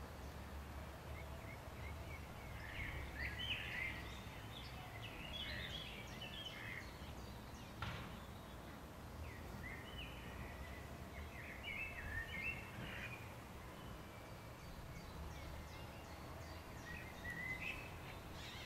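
Small birds chirping in short clusters of quick high notes, on and off, over a steady low background rumble; a single sharp click about eight seconds in.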